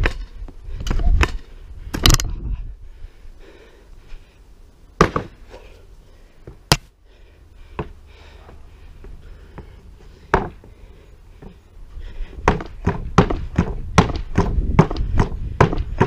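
Vurtego air-spring pogo stick bouncing. A few landing thunks come first, then a quieter stretch with only the odd knock. Near the end comes a fast, regular run of thuds and clanks, about three a second, as it bounces continuously.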